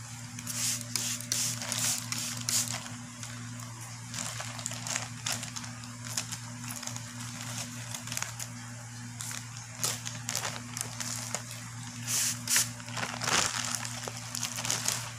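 Plastic courier mailer bag crinkling and rustling in irregular bursts as it is handled, loudest near the end, over a steady low hum.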